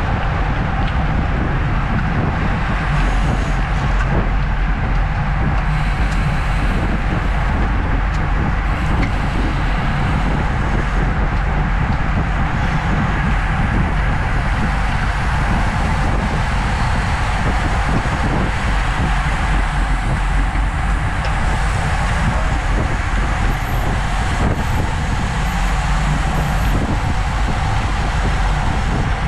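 Steady wind buffeting on a racing bicycle's action-camera microphone at about 25 to 30 mph, with road and tyre noise from the pack of road bikes around it.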